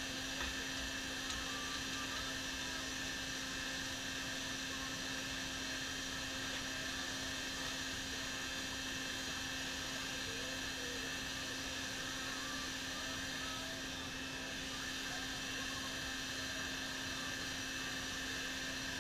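Electric air blower feeding a backyard forge through a flexible hose, running steadily: an even whir with a constant low hum.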